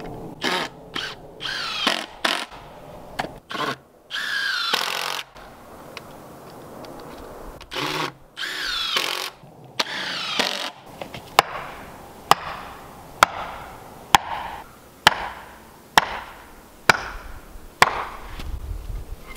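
Cordless drill driving screws into a wooden batter board in several short whirring bursts, the motor pitch sliding down as each screw seats. Then, from about halfway through, a heavy hammer knocks a wooden stake into the ground with about eight sharp blows, roughly one a second.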